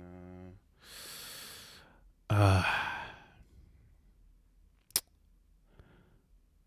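A person sighs: a breath drawn in, then a louder voiced breath out that trails off. A chanting voice ends just at the start, and there is a single sharp click about five seconds in.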